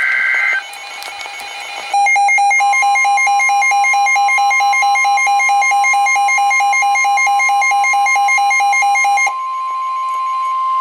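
The end of an Emergency Alert System SAME data burst, a brief two-tone warble, followed by a receiver's alarm beeping rapidly over the steady 1050 Hz NOAA Weather Radio warning alarm tone. Near the end the beeping stops and the single steady tone carries on alone.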